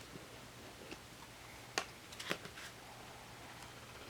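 A few light clicks and taps, with a small cluster a little past halfway, from hands handling washi tape and planner paper.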